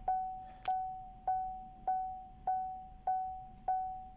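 Chevrolet Spark's dashboard warning chime with the ignition on: a single-pitched electronic ding repeating evenly, about seven times, each fading before the next.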